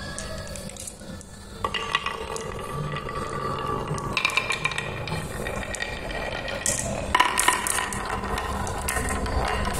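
Several small balls rolling along the winding groove of a wooden marble run, with a rolling hum and sharp clicks as they knock against each other and the wood, starting a little under two seconds in. They then rattle down a wooden board set with wooden pegs, with the loudest run of clicks a little after seven seconds.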